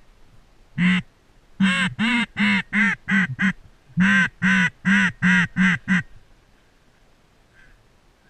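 Mallard hen quacks blown on a duck call: one quack, then two runs of about six quacks each, the quacks getting shorter and quicker toward the end of each run, loud and close.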